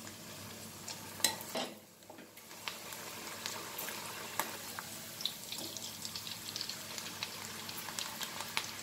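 Soaked yellow moong dal deep-frying in hot oil inside a steel mesh strainer, sizzling with a dense crackle of small pops that grows busier after a couple of seconds. A few sharp metal clinks come about a second in as more dal is spooned in.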